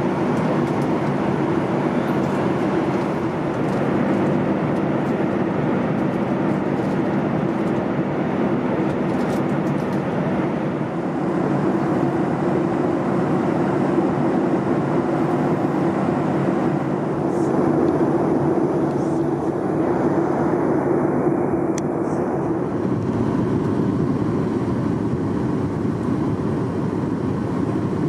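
Steady in-flight cabin noise of a Boeing 737 MAX 8: a continuous rumble of engines and airflow.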